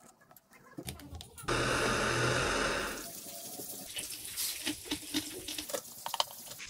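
Dry sand pouring from a plastic scoop into a plastic bowl: a steady rushing hiss for about a second and a half. Light clicks and rattles of grains and plastic being handled follow.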